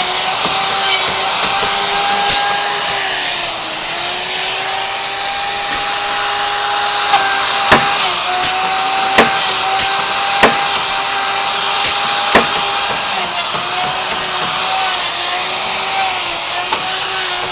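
Door hinge-machining router running with a steady whine, its pitch dipping briefly several times, with a run of sharp clicks or knocks in the middle.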